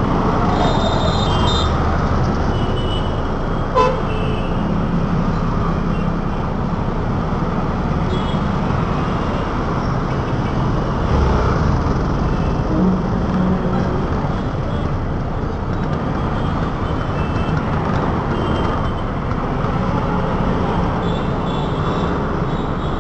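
Steady city road traffic: engines running and tyre noise, with vehicle horns tooting now and then. There is one sharp knock about four seconds in.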